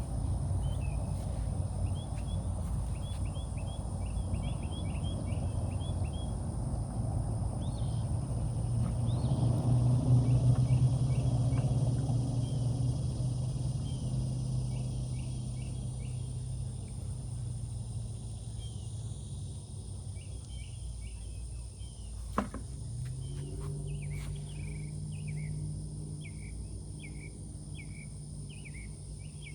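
Outdoor riverbank ambience: birds chirping in repeated short trills over a steady high insect buzz. A low hum swells to its loudest about ten seconds in and fades. A second steady low hum comes in about two-thirds of the way through, just after a single sharp click.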